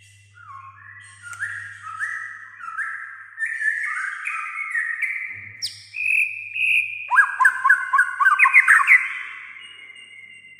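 White-rumped shama (murai batu) in full song: a run of clear whistled notes stepping up and down in pitch, then about seven seconds in a fast volley of sharp sweeping notes, the loudest part, fading out near the end.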